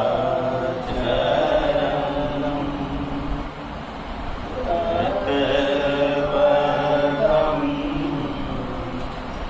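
Devotional chanting of a Hindu mantra in long, drawn-out phrases, with a short pause about four seconds in before the next phrase begins.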